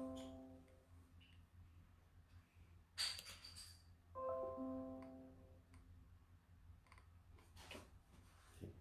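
A soft electronic chime, several notes sounding together, heard fading out, then again about four seconds in, where it rings and fades over about a second. A short, sharp click with a hiss comes about three seconds in, and a few faint clicks near the end.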